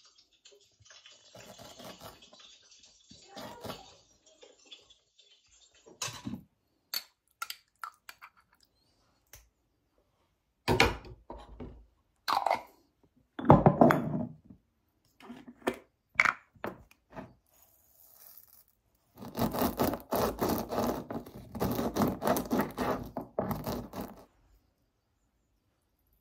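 Kitchen handling sounds on a countertop: scattered knocks and clatters of jars and utensils, with a longer stretch of dense clattering near the end.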